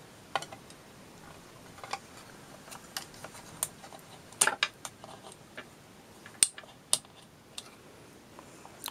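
Irregular light clicks and taps of plastic and metal parts as the flyer and bobbin of an EEW Nano electric spinning wheel are handled by hand, with a few louder clicks around the middle and later on.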